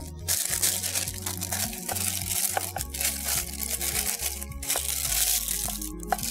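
Butter paper crinkling and rustling as it is pressed and smoothed by hand into a round aluminium cake tin to line it, in spells broken by short pauses, with soft background music underneath.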